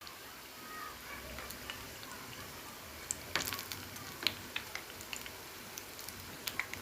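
Pisang molen, bananas wrapped in dough, deep-frying in hot oil: a steady sizzle with scattered crackles and a few sharper pops a little after three seconds in and about four seconds in.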